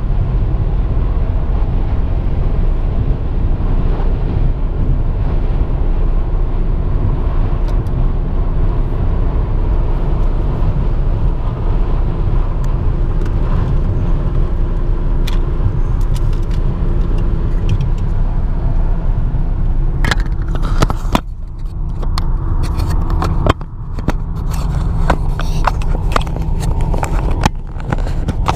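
Car cabin road noise while driving on a rain-wet highway: a steady low rumble of tyres and engine with a droning hum. About twenty seconds in the rumble eases and a scatter of sharp clicks and knocks comes through.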